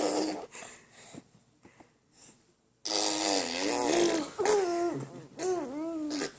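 Six-month-old baby making sputtering, spitting noises with its lips, mixed with its voice. A short sputter at the start and a pause about two seconds in are followed by a longer, louder voiced sputter lasting about three seconds.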